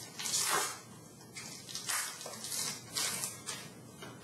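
Hockey trading cards being slid and shuffled through the hands, with a series of brief papery swishes and rustles.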